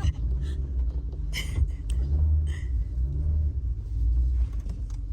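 Low rumble of a car engine working hard, its revs swelling and falling, as the car struggles to climb a snow-covered hill.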